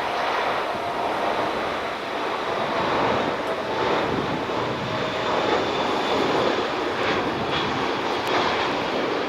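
Jet airliner's engines at takeoff power: a steady, loud rushing noise with faint whining tones in it.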